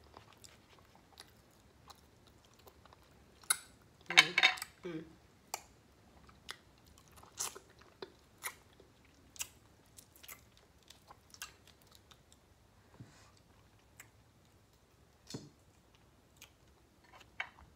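Close-miked eating of steamed shrimp: sparse, wet mouth clicks and smacks of chewing, roughly one a second. About four seconds in there is a louder burst with a short voiced sound.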